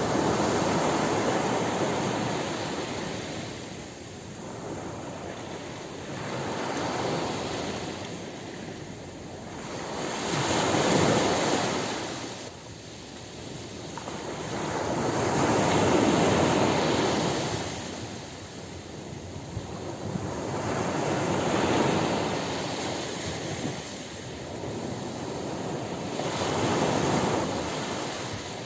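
Ocean surf on a beach: waves breaking and washing up the shore, the hiss swelling and falling back about every five seconds.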